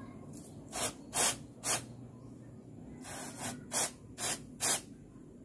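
Aerosol carburettor cleaner sprayed in about eight short bursts onto a motorcycle starter motor's end cap, in two groups with a pause about two seconds in, to wash crusted dirt out of it.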